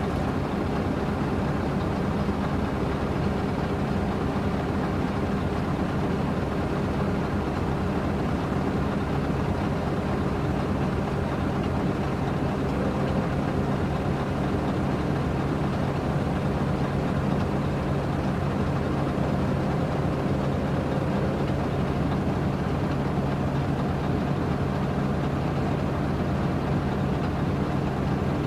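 Scania plow truck's diesel engine idling steadily while parked, heard from inside the cab as an even low hum.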